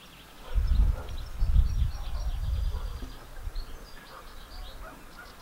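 Small birds chirping faintly in the background, many short chirps. Two loud low rumbles about half a second in and again around a second and a half, like wind or handling on the microphone.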